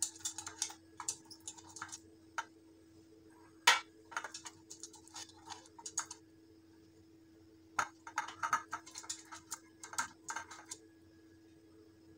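Silicone pastry brush dabbing and tapping inside the cups of a metal muffin tin while greasing them with cooking oil: clusters of light clicks and taps, with one sharper knock about four seconds in. A faint steady hum runs underneath.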